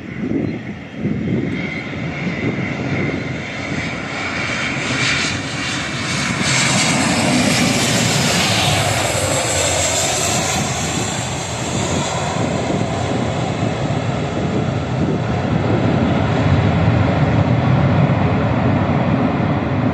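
Airliner landing at low height, its jet engines giving a loud roar that grows as it passes. A high whine and sweeping tones slide down and back up in pitch around the middle, and the roar stays loud afterwards.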